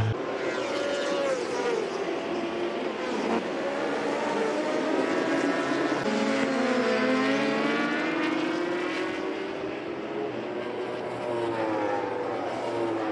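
Several racing motorcycle engines running at high revs, their overlapping tones gliding up and down as the bikes pass.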